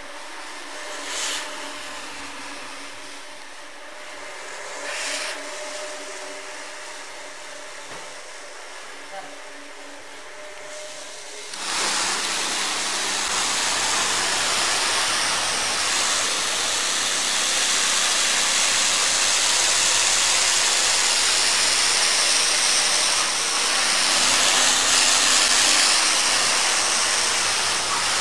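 An electric rotary floor scrubber runs with a steady motor hum on a soapy rug, with a couple of brief splashes. About twelve seconds in it gives way abruptly to the loud, steady hiss of a pressure-washer jet spraying water onto the rug.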